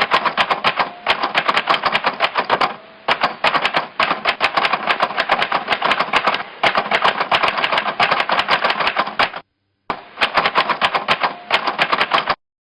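Loud, dense, rapid clattering that cuts off abruptly a bit over 9 s in, resumes about half a second later, and cuts off again near the end.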